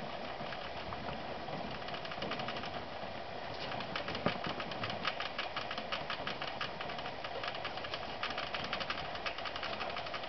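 Doe rabbit licking a newborn kit clean in the hay nest: rapid, fine wet clicking of her tongue, coming in runs, busiest from about a third of the way in and again near the end.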